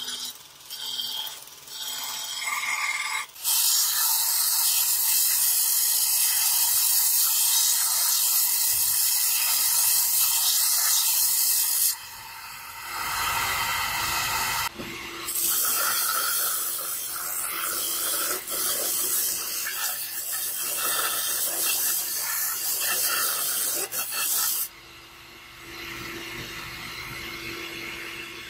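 Belt sander grinding a steel blade: a loud, even abrasive hiss in two long passes while the blade is pressed to the belt, with quieter stretches about halfway through and near the end.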